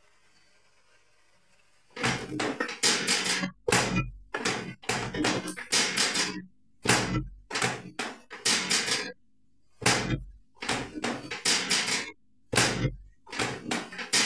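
Near silence for about two seconds, then background music with a steady percussive beat of sharp, repeated hits, some with deep low thumps.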